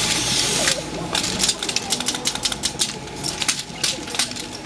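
Pneumatic scrap-metal robot venting a hiss of air and mist that stops about a second in. Then comes a rapid, irregular clicking and clacking of its air valves and metal joints as it moves, over a steady low hum.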